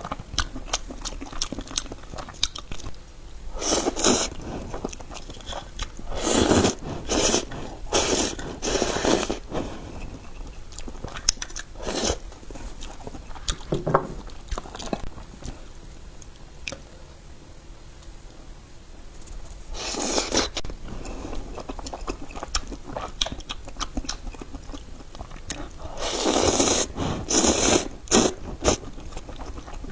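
Close-up eating sounds of oysters: biting and chewing, with scraping and crunchy clicks. These come in loud bursts of about a second, several times over.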